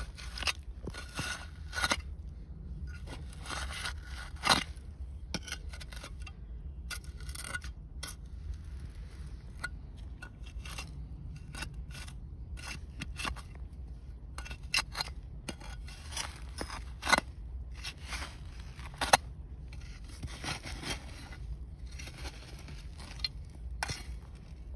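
Digging by hand in dump soil: a tool scraping and scratching through dirt and buried debris in irregular strokes, with a few sharper knocks or clinks, to free a buried bottle.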